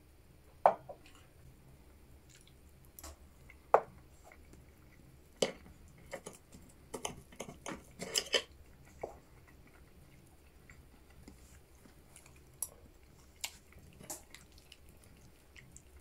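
A small glass is set down on a wooden table with a sharp knock about a second in. Then a metal knife and fork clink and scrape against a ceramic plate while cutting food, with a busy run of clicks in the middle and a few single taps near the end.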